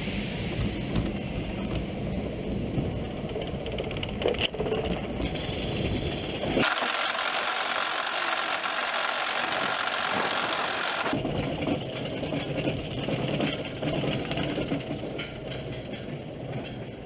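Roller coaster train running along its track, a steady rumble mixed with rushing wind. About six and a half seconds in, the rumble cuts out abruptly, leaving only a hiss for about four and a half seconds, then it comes back.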